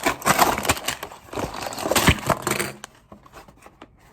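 Crinkling and rustling of LEGO set packaging, plastic piece bags being handled, dying down about three seconds in.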